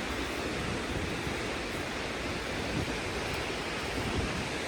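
Steady rushing outdoor background noise, even throughout with no distinct events.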